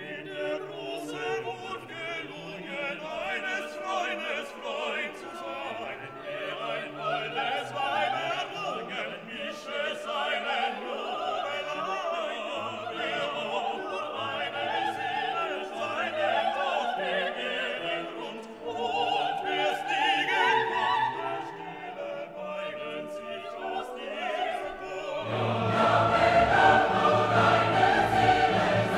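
Background music: a Filipino folk song sung by a vocal group with orchestral accompaniment, growing fuller and louder near the end.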